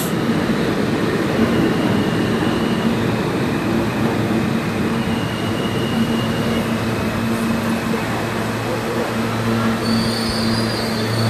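New York City subway train in the station: a steady rumble and mechanical noise with faint high-pitched wheel squeals, and a low steady hum growing stronger about eight seconds in.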